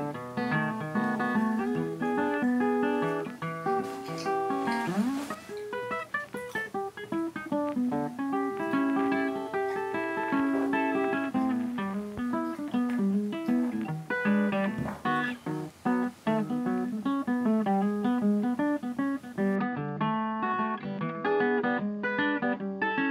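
Background music of plucked guitar playing a lively melody over chords; near the end the sound turns duller as the treble drops away.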